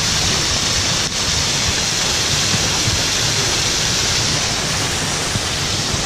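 Waterfall pouring down a rock face into a stone basin: a steady, loud rush of falling water.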